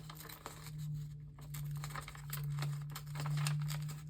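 Thin dictionary paper being handled and torn: a run of short, irregular rustles and rips, over a steady low hum.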